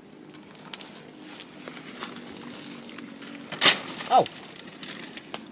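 Light crackling of movement through dry vegetation. About three and a half seconds in there is one loud, sharp crackle. A short vocal sound falling steeply in pitch follows it.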